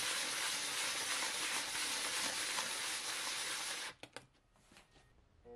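A cast silicon-bronze plaque rubbed back and forth by hand on a sheet of sandpaper: a steady, scratchy rasping as the raised lettering and border are sanded flat down to bare metal. It stops about four seconds in, followed by a couple of light knocks.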